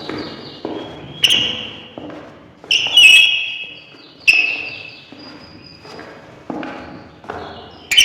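Footsteps of hard-soled shoes on wooden boards, at an uneven pace of roughly one step a second. Several steps carry a short high squeak.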